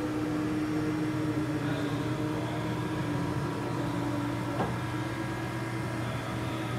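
Steady hum of running machinery with several steady tones in it, and one sharp click about four and a half seconds in.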